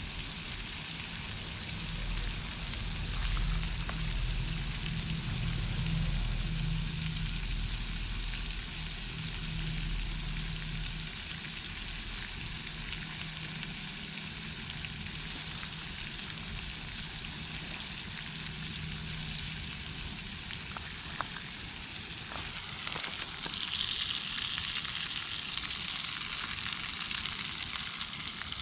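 Formed meat sizzling over a campfire, a steady hiss with the odd crackle. A low hum sits under it for the first ten seconds or so, and about 23 seconds in the sizzle grows louder and higher for several seconds.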